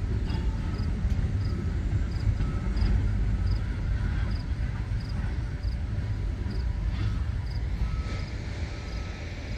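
CN freight train of covered hopper cars rolling past at slow speed, a steady low rumble of the cars on the rails that eases slightly near the end.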